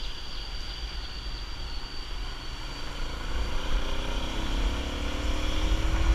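Motorbike engine running while riding, its pitch rising steadily from about halfway through as the bike speeds up, over a low rumble of wind on the microphone.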